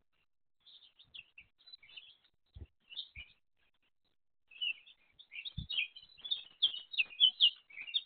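Small birds chirping in quick, high, broken notes: scattered at first, then a fast, dense run of chirps through the second half. A few soft low thuds fall among them.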